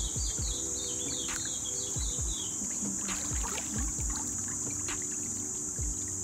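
A steady high-pitched insect drone from crickets or cicadas, with a bird chirping rapidly and repeatedly over the first two seconds or so. A few low thumps come and go.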